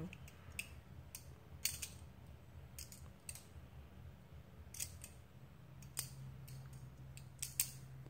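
Trainer balisong (butterfly knife) being flipped, its handles and blade clacking together in irregular sharp metal clicks, some in quick pairs. A low steady hum comes in partway through.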